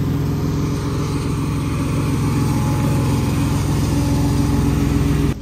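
Engine-driven pump running steadily, pumping floodwater out of a flooded building. It stops abruptly near the end.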